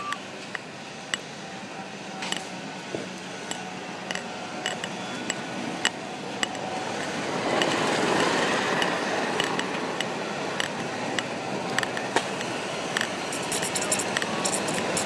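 Irregular light clinking taps of a necklace pendant knocking against the recording device held to the chest, over a steady hiss that grows louder about halfway through.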